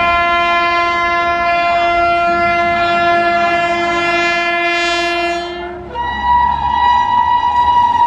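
Indian Railways WAP-7 electric locomotive horns: a long steady low-pitched blast, then about six seconds in a higher, shrill horn takes over and is held, over the rumble of the passing train.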